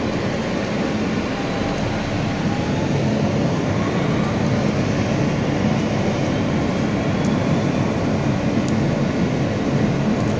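Subway train running through a tunnel, heard from inside the car: a steady rumble with a faint whine rising in pitch.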